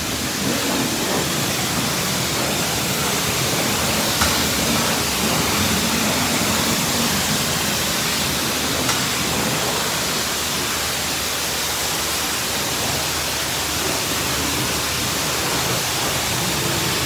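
High-pressure spray wand of a self-service car wash hissing steadily as it rinses a car, the water spray striking the bodywork and wet floor.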